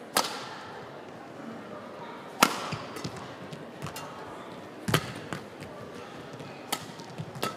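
Badminton rally: rackets striking the shuttlecock with sharp cracks about two to two and a half seconds apart, four strong hits and a fifth, lighter one near the end, each ringing briefly in the hall.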